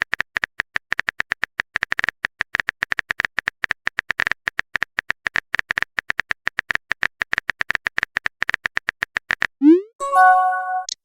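Rapid, irregular clicks of a phone-keyboard typing sound effect for about nine seconds, then a short rising bloop and a chime of several held tones near the end, like a message being sent and a notification arriving.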